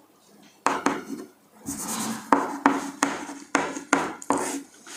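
Chalk writing on a blackboard: after a short pause, a string of sharp chalk taps and short scratches, roughly ten strokes in four seconds, with a longer scratch about two seconds in.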